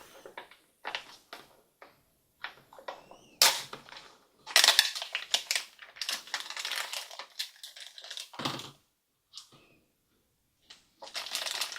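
Plastic toy packaging being torn and crinkled open by hand, a run of irregular crackles and clicks that is densest in the middle, with a short pause before a few more near the end.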